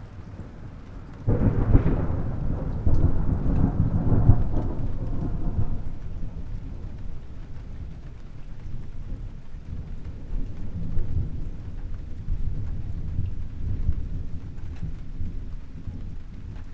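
Thunderstorm: a thunderclap breaks suddenly just over a second in and rolls on as a long low rumble that slowly dies down, with steady rain throughout.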